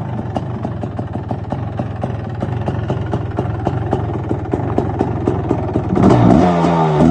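Suzuki LT500R Quadzilla's 500 cc two-stroke single-cylinder engine idling with a steady, regular beat, then revved with a couple of throttle blips about six seconds in.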